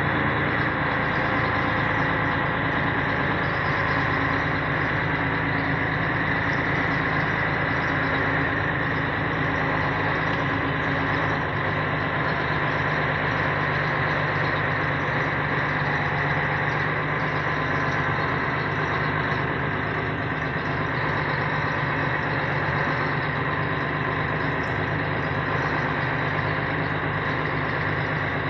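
Heavy truck's diesel engine running steadily at low revs, heard from inside the cab as the truck moves slowly.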